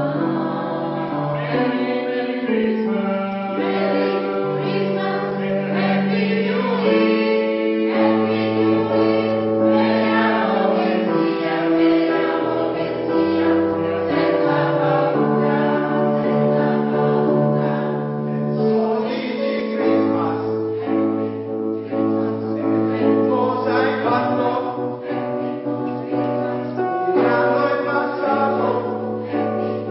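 Polyphonic choir singing in several parts, holding sustained chords that shift every second or two, with low bass notes under the higher voices.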